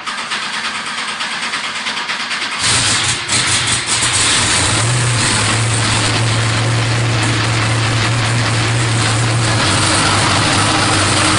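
Turbocharged race car engine cranking for about two and a half seconds, then catching with a few uneven bursts and settling into a steady loud idle on its first start since being re-assembled.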